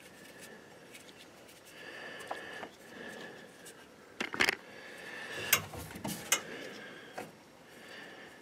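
Hands handling automotive wiring and plastic wire loom: soft rubbing and rustling, with a handful of sharp clicks between about four and six and a half seconds in.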